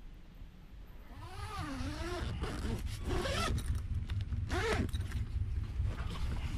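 Zipper on a rooftop awning's black travel cover being pulled open by hand, a run of quick clicks over a low rumble. Two short wavering, pitched sounds come about a second in and near the five-second mark.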